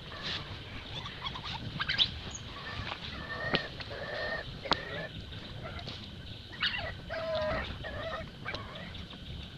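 Baby long-tailed macaque calling in short, pitched cries, two bouts of a second or so each, with a few sharp clicks in between.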